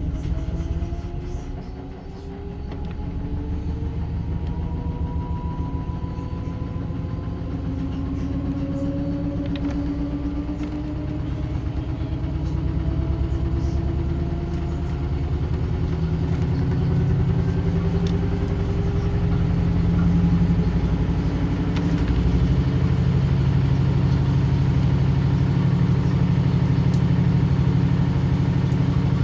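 LG top-loading washing machine spinning up in its spin cycle, run in test mode: the motor's whine rises steadily in pitch over roughly the first half, while a low rumble from the drum grows louder and then holds steady at full spin speed.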